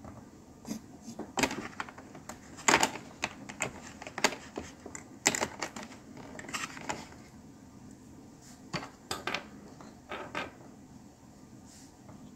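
Small plastic model-kit parts clicking and tapping together as they are handled on a workbench: irregular sharp clicks, with a quieter gap of a second or two near the middle.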